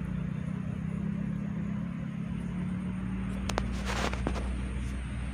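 A steady, low motor drone. About three and a half seconds in come a couple of sharp clicks and a brief rustling burst.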